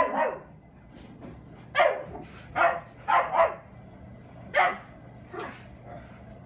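A dog barking in play: a string of about six short, sharp barks at irregular intervals, the last one weaker.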